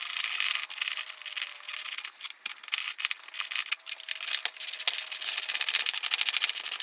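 Rapid metallic clicking and rattling of hand tools and hardware while the solar panels are bolted together.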